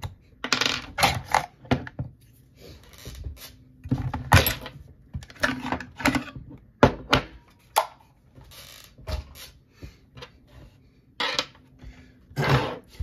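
Metal parts of a VFC MP5 gas blowback airsoft rifle clicking, clacking and scraping as it is taken apart by hand to get the bolt carrier and recoil spring out. The clicks and knocks come irregularly, some sharp and loud, with short sliding scrapes between them.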